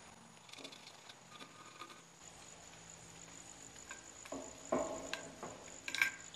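Light metallic clinks and rattles of a wire condenser fan grille and fan motor being handled while the last motor mounting fastener is put in by hand. A few louder knocks come about four to five seconds in, and a sharp click near the end.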